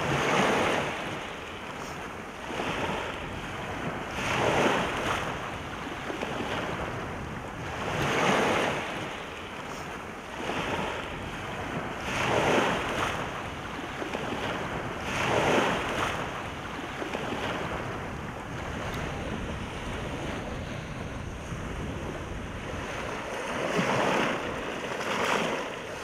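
Small sea waves breaking and washing up a pebble shore, the surf swelling and falling back every few seconds.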